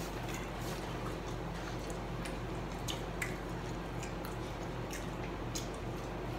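Chewing and small wet mouth clicks from people eating chicken nuggets, scattered short ticks over a steady low hum.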